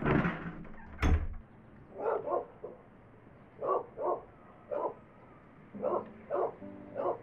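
A loud bang at the start and a sharp knock with a thud about a second in, then a dog barking: about eight short barks, often two close together.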